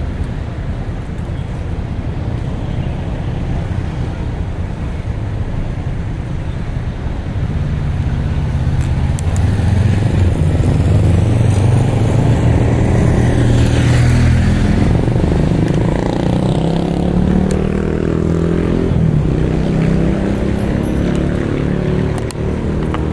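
Steady wind and road rush from a bicycle ride, with a motor vehicle's engine growing louder and passing about halfway through, its pitch falling as it moves away.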